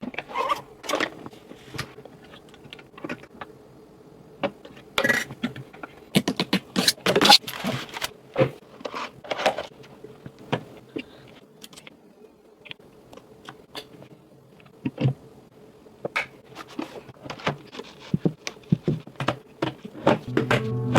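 Irregular clicks, knocks and scrapes of computer parts and case panels being handled and fitted during a PC build, with a cluster of louder clatter around a third of the way in. Music comes in near the end.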